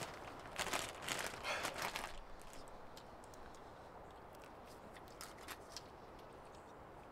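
A banana being peeled: a few short rustling, tearing strokes in the first two seconds, then a quiet hush with scattered faint clicks.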